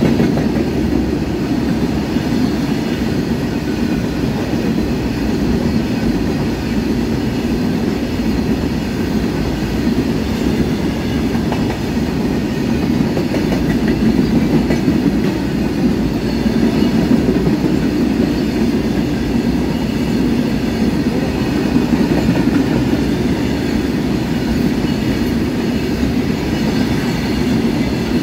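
A freight train of tank wagons rolling past close by. The wheels make a steady, loud rumble and a clickety-clack on the rails.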